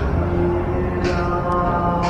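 Music with steady held notes and two sharp percussive hits about a second apart.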